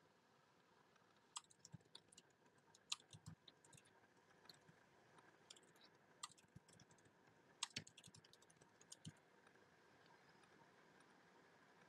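Faint typing on a computer keyboard: irregular keystrokes in scattered runs, starting about a second in and stopping about nine seconds in.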